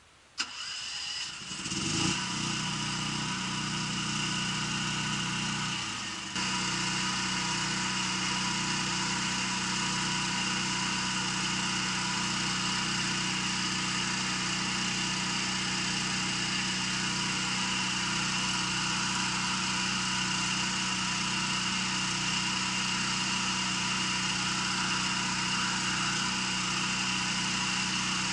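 An engine starts and settles into a steady run, stepping up slightly in speed or load about six seconds in.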